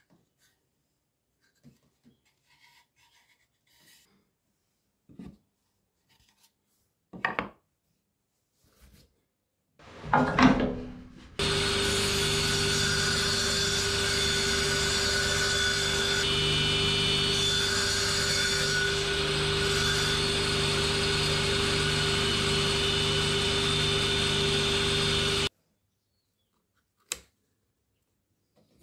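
A few light knocks and clicks of wood being handled, then a woodworking power tool starts and runs steadily with a constant hum for about fourteen seconds before cutting off abruptly.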